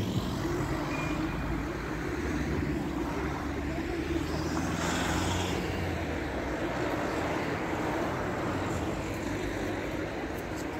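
City street traffic: a steady low engine rumble from nearby road vehicles, with a brief louder hiss of a vehicle passing about five seconds in.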